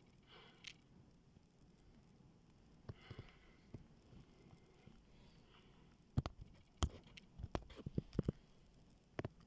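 Faint snoring breaths, a few seconds apart. About six seconds in, a quick run of soft clicks and knocks takes over as the loudest sound, with a couple more near the end.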